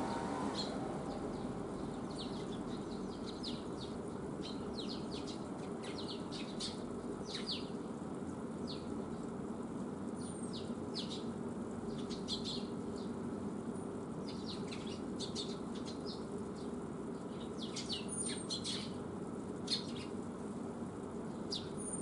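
Small birds chirping: many short high chirps scattered throughout and a few thin high rising calls, over a steady low background rumble, with one louder click near the end.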